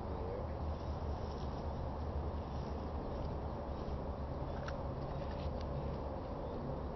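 Outdoor ambience: a steady low rumble with a few faint, short, high chirps.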